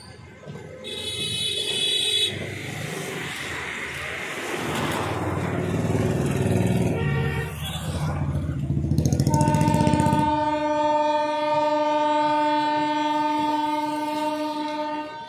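Okha–Shalimar Express arriving at a station, rumbling louder as it draws in. A short high-pitched horn blast comes about a second in. From about nine seconds in, the locomotive's horn sounds one long, steady blast of several seconds and stops just before the end.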